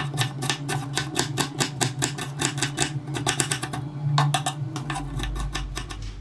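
Chef's knife chopping red onion and sweet pepper on a bamboo cutting board: quick, even knocks of the blade on the wood, about four or five a second, stopping about five seconds in.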